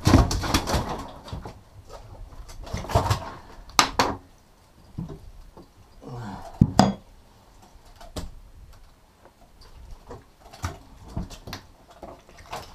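Irregular knocks, thumps and clatter of fish and gear being handled on a fishing boat's deck. The sharpest knocks come near the start, about four seconds in and about seven seconds in.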